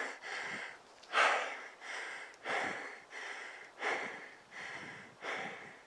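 A man breathing hard and fast close to the microphone, a short noisy breath roughly every three-quarters of a second, winded after climbing at high altitude.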